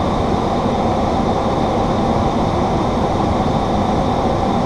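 Steady flight-deck noise of a Boeing 737-800 on approach: an even rush of airflow and cabin air-conditioning that does not change.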